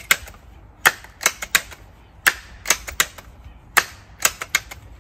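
Seneca Dragonfly MK2 .22 multi-pump pneumatic air rifle being pumped: its pump lever swings open and shut about three times, each stroke a cluster of sharp mechanical clicks, about every second and a half, as air is pumped into the rifle's cylinder.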